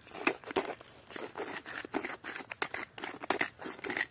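A hand-twisted pepper grinder cracking peppercorns: a quick run of gritty clicks, about three a second.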